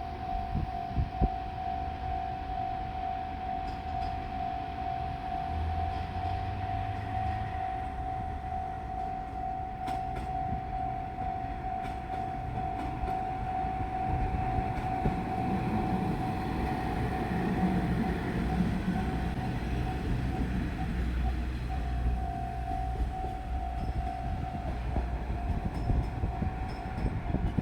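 Japanese level-crossing alarm sounding steadily as a pair of KiHa 47 diesel railcars approaches and passes. The railcars' diesel engine rumble grows louder from about halfway through, and the alarm stops near the end.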